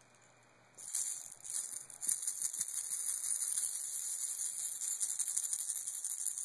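Plastic baby rattle shaken continuously, a dense, steady high rattling that starts about a second in.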